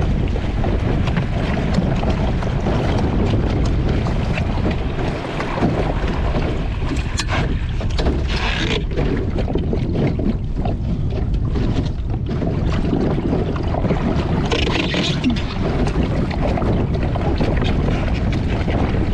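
Wind buffeting the microphone of a camera mounted on a Moth sailing dinghy under way, over water rushing along the hull, with a couple of brief louder hisses.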